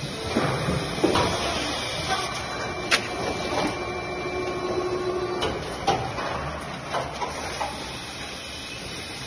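A 240-tonne injection molding machine and its take-out robot running at high speed: a steady mechanical hum with a series of sharp clacks and knocks as the mold and robot cycle. A thin steady whine sounds from about two to five seconds in.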